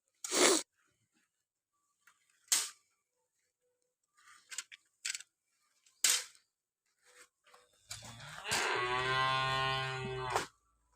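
A cow mooing once, one long call of about two and a half seconds near the end. Before it come a few short, sharp knocks.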